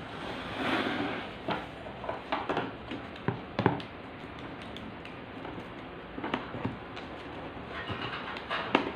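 A cardboard shipping box being handled and worked open with scissors: scattered taps, knocks and scrapes of the metal scissors and the cardboard, with one sharper knock about three and a half seconds in.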